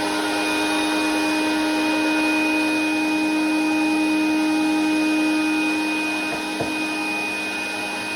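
Electric wood router with a roundover bit running steadily at speed, a fixed motor whine with no change in pitch. A faint brief knock comes about six and a half seconds in.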